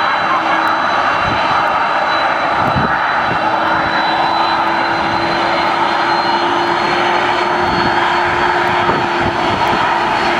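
Boeing 747-400 jet engines running steadily at close range, an even loud rush with a constant high tone in it and no rise or fall in pitch.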